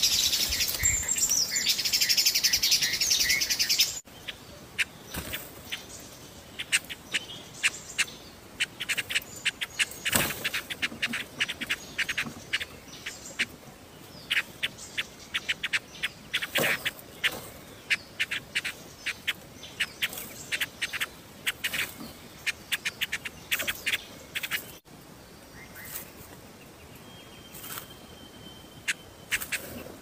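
Nestlings chirping in short, high, rapid runs, the begging calls of hungry chicks in the nest. A loud, steady, high insect drone fills the first few seconds.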